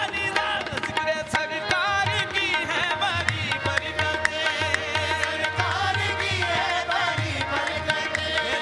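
Live qawwali: a voice sings wavering melismatic lines over two harmoniums and tabla, and the chorus claps the beat.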